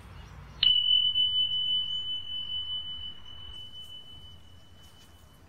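A single high chime struck once about half a second in, ringing as one clear note that slowly fades away over about five seconds.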